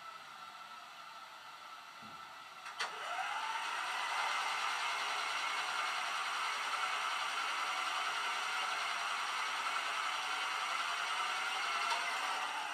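Sound decoder of a model 1938 London Underground tube train, heard through its small on-board speaker, playing the stationary train's machinery: a click about three seconds in, then a whine that rises in pitch and settles into a steady whirring hum. A second click comes near the end, where the hum starts to ease off.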